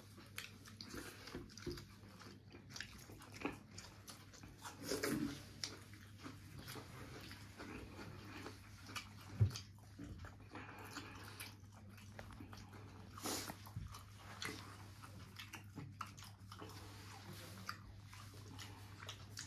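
A person eating a meal of curry, roti and rice close to the microphone: irregular biting, chewing and wet smacking sounds with small clicks, a few louder than the rest, over a faint steady low hum.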